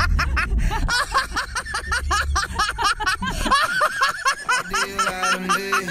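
Background music: a song with vocals over a beat, with held notes near the end. A low rumble runs under it for the first three and a half seconds or so.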